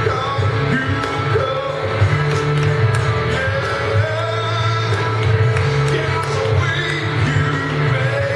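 Live church worship song: a band playing with singing over a steady beat.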